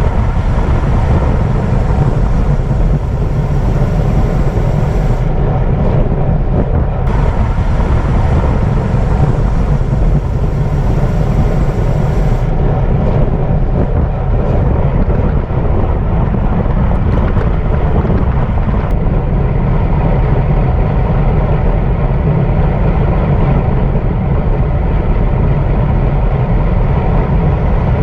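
Steady, loud wind roar on the microphone of a camera riding on a racing bicycle at speed, mixed with road and tyre noise.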